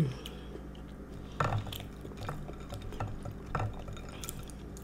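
A spoon stirring and clinking in a bowl of iced milk: a few separate sharp clinks about a second apart, with small liquid sounds.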